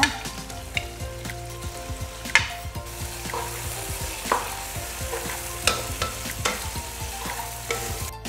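Shrimp, chicken and carrot strips sizzling in oil in a nonstick wok as a wooden spatula stir-fries them, knocking against the pan now and then; the sharpest knock comes about two and a half seconds in.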